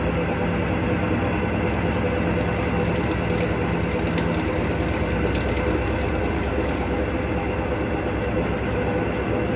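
Electrolux LTC12 12 kg washing machine running with a steady, loud rumble and hum. The drum bearings are rumbling loudly, the sign of worn bearings.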